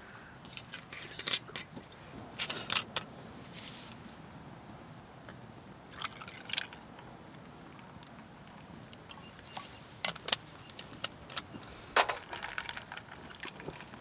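Hot oil spitting and popping in irregular sharp crackles as chikuwa deep-fries in a Bawloo hot sandwich maker over a campfire.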